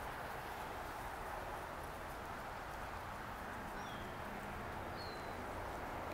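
Steady outdoor background noise, with two short, high, falling bird chirps about four and five seconds in.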